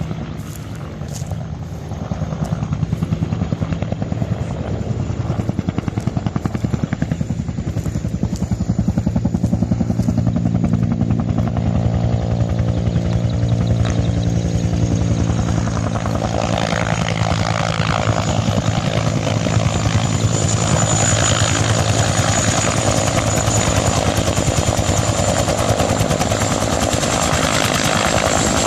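Water-bombing helicopter running, its rotor beat and turbine growing louder over the first few seconds and then holding steady. From about halfway a rushing noise joins, and a high whine strengthens near the end.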